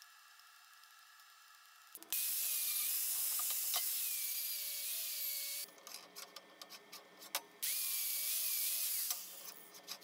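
Small handheld power tool running at speed on the steel, with a high steady whine and hiss, in two runs: one of about three and a half seconds starting about two seconds in, and a shorter one near the end. Between the runs there are sharp clicks and scrapes of the tool against the metal. This is the fresh weld seam on a steel square-tube box being cleaned up.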